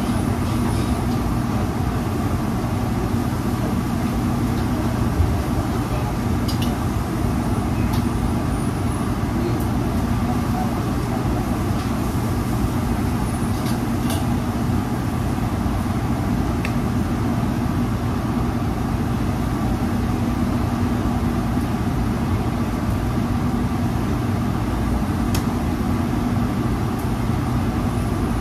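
Steady drone of a commercial kitchen exhaust hood fan over the grill line, with a low hum and a few light clicks scattered through.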